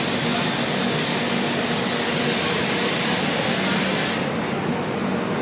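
A loud steady hiss over the running rumble of a train, cutting off about four seconds in.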